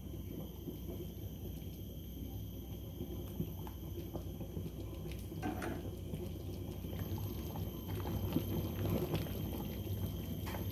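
Thick fish maw soup bubbling at a simmer in a steel pot on a gas burner, with a fine, steady crackle of bursting bubbles over a low hum. A ladle stirs now and then, making a few faint clicks.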